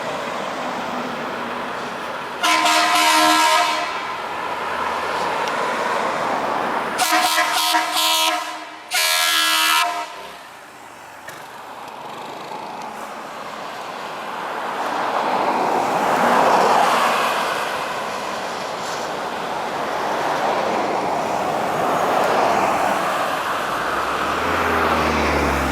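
Multi-tone vehicle air horn blowing three blasts: one of just over a second, then two close together about four seconds later. Road traffic passes after the horn stops.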